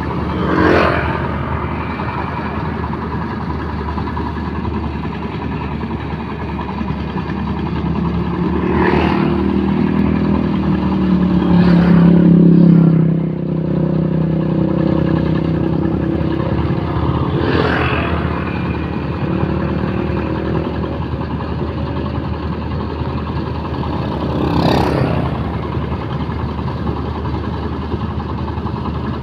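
Motorised rice thresher running steadily under its engine. Five brief rushing sounds come at uneven intervals, from rice stalks being fed into the threshing drum. Through the middle the machine runs louder and heavier for a few seconds, as if under load.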